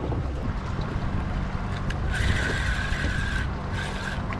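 Boat engine running with a steady low hum. From about two seconds in, a higher whirring comes and goes in spurts: a spinning reel being cranked to retrieve the line.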